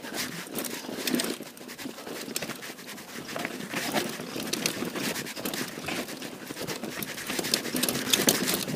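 Mountain bike descending a dry dirt trail: tyres crunching over loose gravel, rocks and dry leaves, with a steady stream of small clicks and rattles from the bike.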